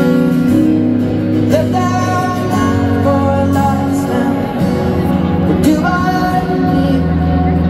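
Live arena performance of a slow acoustic ballad: a singer's voice over acoustic guitar and piano, heard from the crowd with the hall's reverberation.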